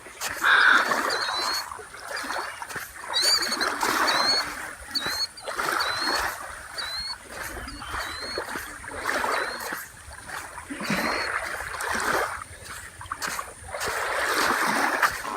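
Small waves washing onto the lakeshore in irregular swells every second or two. A bird chirps repeatedly over them, about twice a second, for the first half or so.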